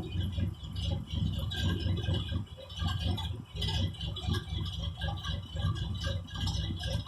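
Big-block V8 (468) in a Chevy K30 crew cab, running cold at an uneven, lumpy idle through homemade open-chamber mufflers. It was cold-started with no choke on its Holley carburetor and still has to be kept running until it is warm enough to idle on its own.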